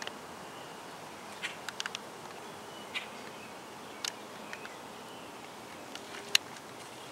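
Quiet outdoor ambience: a steady faint hiss with a few sharp clicks and faint high chirps scattered through it.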